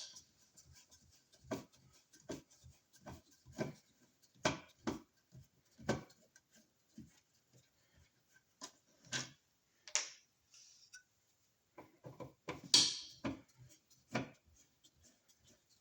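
Irregular light clicks and knocks of hand tools and parts being handled while working on a wall receptacle, about a dozen spread unevenly, loudest a little before the end.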